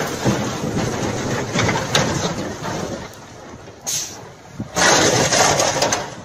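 Dump truck engine running as the truck moves along a snowy road. A brief loud rushing noise comes about four seconds in, and a longer, louder one about a second later.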